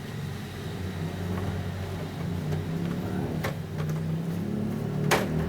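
Plastic scooter fairing panel knocking and clicking as it is pressed into place, with two sharp clicks near the end, over a steady low hum that slowly grows louder.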